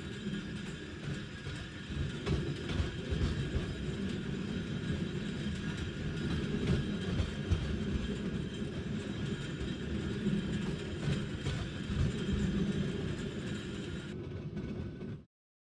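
Tram running along rails: a steady rumble with irregular low knocks and a faint high whine, stopping abruptly near the end.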